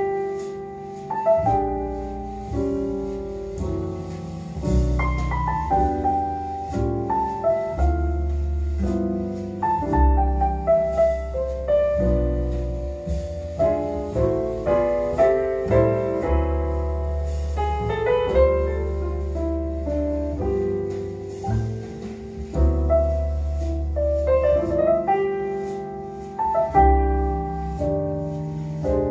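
Calm jazz piano music, with low bass notes underneath, played through a pair of Klipsch R-51M bookshelf speakers and picked up in the room by a camera's microphone.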